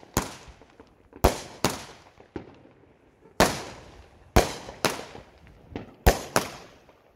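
Aerial fireworks bursting overhead: about ten sharp bangs in quick, uneven succession, each with a short fading tail, two of them softer than the rest.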